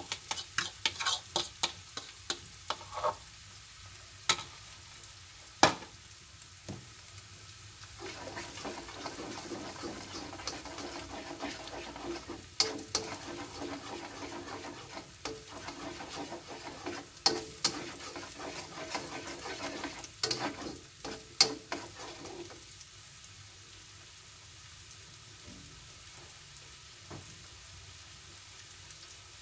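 Beaten egg sizzling in hot oil in a non-stick wok and being stirred with a spatula: quick tapping near the start as the egg is scraped out of the bowl with a fork, then scraping strokes against the pan with a few sharp knocks, settling after about 22 seconds into a quieter steady sizzle.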